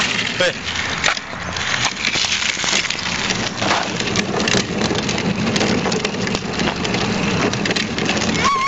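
Hard plastic wheels of a Little Tikes Cozy Coupe ride-on toy car rolling over rough asphalt as it is pushed: a continuous gritty rattle made of many small clicks. A child's short high voice is heard near the end.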